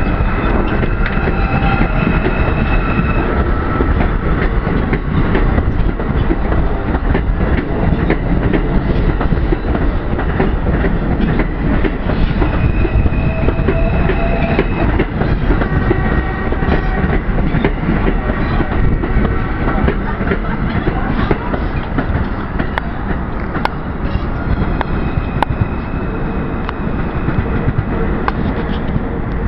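R142 subway train pulling out of a station and running past at close range: steady loud rumble of steel wheels on rail with repeated clicks over the rail joints, and steady high electric tones from the propulsion that come and go.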